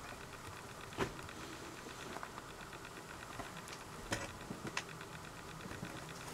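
Pet mice eating mashed potato: faint soft patter and small ticks of feeding and shuffling over a low steady hum, with a few sharper clicks, the loudest about a second in and two more around four and five seconds in.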